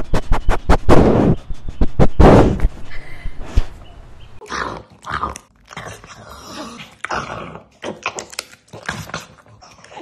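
A dog sniffing and huffing hard in rapid, loud strokes close to the microphone. After a few seconds these give way to softer snuffles, snorts and chewing from a pug eating a chew out of a hand.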